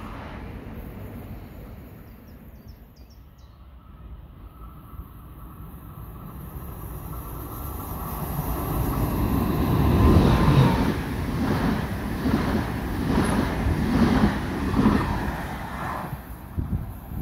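Train approaching and passing close by: a rumble that builds to a loud, regular beat of wheels running over the track, then drops off sharply near the end.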